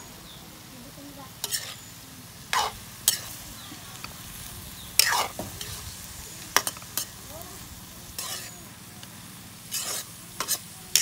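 Metal spatula scraping and tossing vegetables around a metal wok during stir-frying, in about nine irregular strokes with the loudest about five seconds in, over a steady sizzle of frying.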